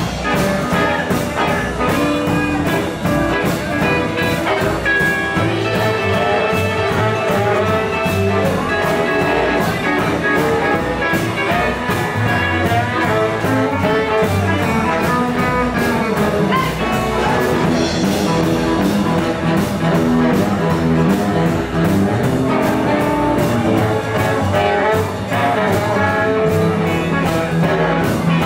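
Live blues band playing with a steady beat: saxophone, electric and acoustic guitars and drums.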